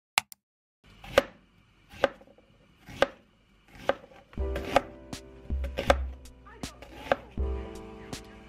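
Kitchen knife slicing through an onion on a cutting board: sharp knocks of the blade hitting the board about once a second, coming a little faster in the second half.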